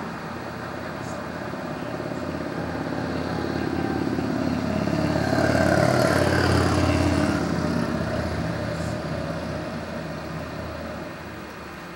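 A motor vehicle passing close by in city traffic. Its engine and tyre noise grow louder to a peak about halfway through, then fade away.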